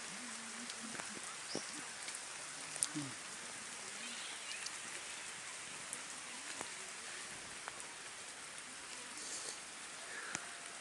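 Steady rain falling, an even hiss with scattered sharp drip ticks.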